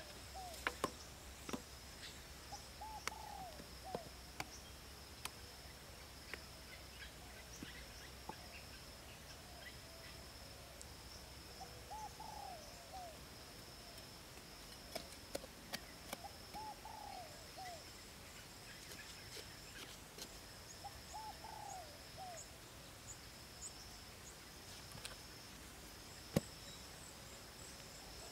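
A bird repeats a short warbling call every four or five seconds over a steady high insect drone. Scattered sharp knocks of a machete chopping wood come close to the start, with one more hard knock near the end.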